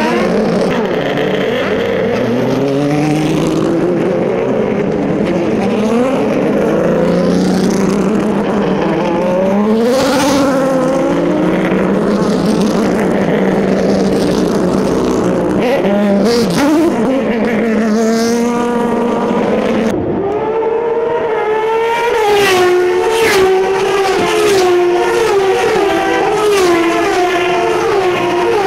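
Turismo Carretera race car engines accelerating and revving, several cars at once, their pitch climbing again and again as they pull through the gears. About twenty seconds in the sound changes abruptly to a steadier, higher blend of engine notes from several cars running together.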